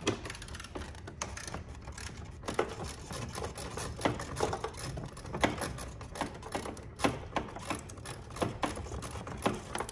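Irregular clicking and knocking of hand tools and plastic parts as bolts and fittings are worked loose on a Corvette C8's tail light housing.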